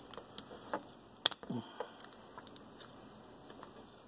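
Small metal pry tool clicking and scraping against the plastic lock tabs of a Power Wheels forward/reverse rocker switch while the housing is pried open: a handful of faint, light clicks, with one sharper click a little over a second in.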